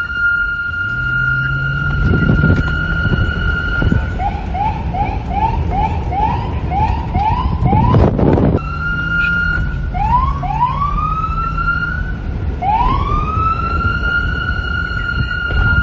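Police car siren: a held high tone, then a fast yelp of quick rising whoops about two a second, a short loud blast about eight seconds in, then several rising sweeps that wind back up to the held tone. Wind noise and a low rumble run underneath.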